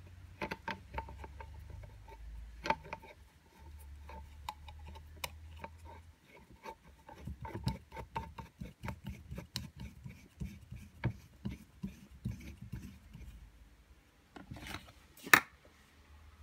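Handling noise from a DeWALT cordless angle grinder that is not running: irregular small clicks and rubbing of its plastic and metal parts, with one sharp, louder click about a second before the end.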